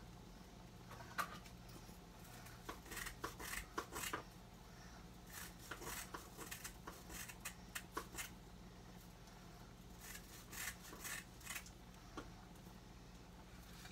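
Kitchen shears cutting through a bundle of dried rice noodles: crisp snips and brittle crackling in short clusters with pauses between them.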